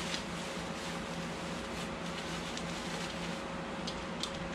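Steady low hum and hiss of room tone, with a few faint crinkles near the end as bubble wrap is pulled off a part.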